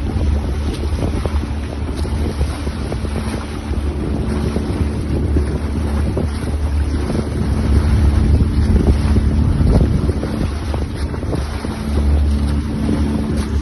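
Engine of a small passenger boat running steadily under way, with wind buffeting the microphone.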